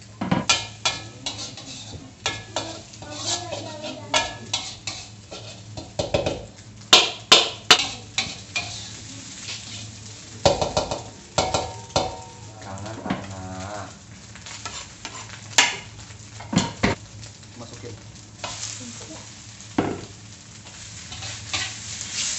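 Metal spatula scraping and knocking in a wok as scrambled egg fries with a light sizzle. The strikes come irregularly, the loudest in a quick cluster about a third of the way in, over a steady low hum.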